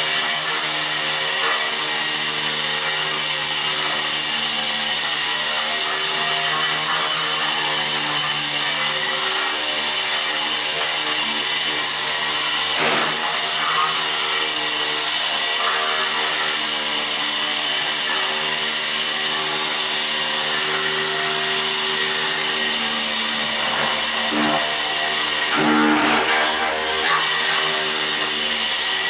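Electric walk-behind floor scraper running steadily, its front blade scraping stuck-on rubber carpet backing off a concrete floor. A loud, steady motor hum runs throughout, with a brief knock about halfway through and another near the end.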